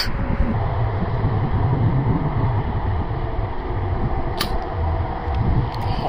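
Wind buffeting the microphone: a steady, gusting low rumble, with a single sharp click about four seconds in.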